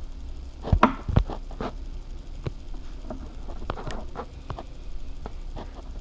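Hands handling slime: a scatter of short irregular clicks and taps, with two louder knocks about a second in.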